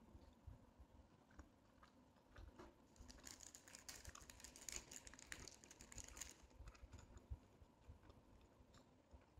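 Quiet chewing of food, with a dense run of thin plastic bag crinkling from about three to six and a half seconds in as carrot sticks are taken out of the bag.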